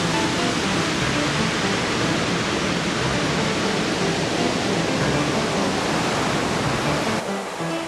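Steady rush of ocean surf breaking on the beach, with electronic music notes playing quietly over it; the hiss of the surf thins abruptly near the end.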